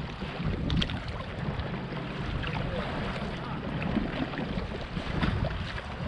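Wind buffeting the microphone in gusts, over small waves lapping against a concrete harbour wall.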